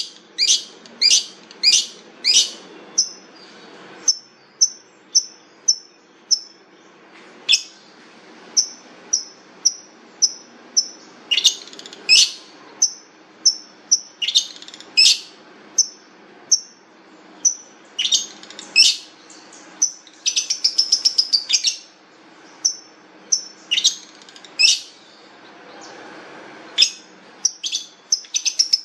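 Long-tailed shrike (cendet) singing: a steady string of sharp, high chirps that sweep downward, runs of short clipped notes, and a fast rattling trill about twenty seconds in.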